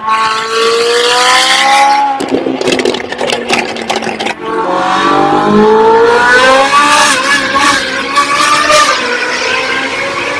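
A McLaren supercar's exhaust revving up, then crackling and popping as the throttle is lifted. Then a Ferrari 458's naturally aspirated V8 accelerates hard through the gears, its note rising and stepping down at each upshift, heard from inside the cabin in a tunnel.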